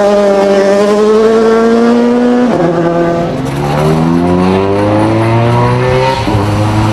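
Rally car engine accelerating hard, its pitch climbing through the revs, with a quick upshift about two and a half seconds in and another near the end.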